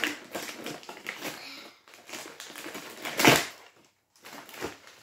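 Clear plastic toy packaging crinkling and crackling in quick, irregular bursts as doll accessories are handled and pulled from a cardboard box, with one louder crunch about three seconds in.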